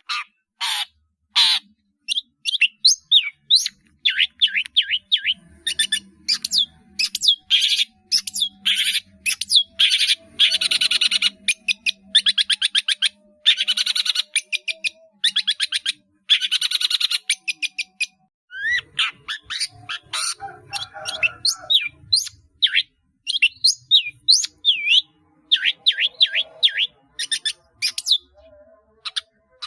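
Long-tailed shrike (cendet) singing a fast, varied song full of mimicked calls: rapid sharp chirps and short rising whistles, broken in the middle by three harsh, rasping trills of a second or so each.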